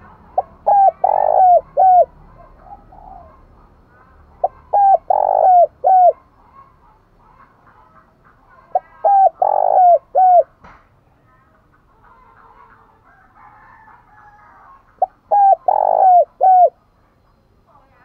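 Spotted dove cooing: four phrases a few seconds apart, each a quick run of short coos around one longer, louder coo.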